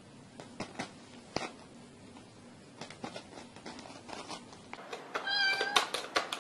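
A house cat meows once, a short, fairly level call about five seconds in, after faint scattered ticks and rustles.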